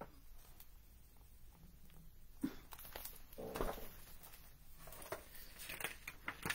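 Faint handling noise from a hardcover picture book: a soft knock, a short paper rustle, then a few light clicks as the book is lowered and moved.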